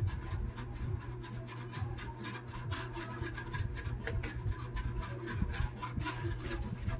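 Crackling and rustling of the clear plastic wrapping on a solar floodlight as it is handled, in many small irregular crackles, over a steady low hum.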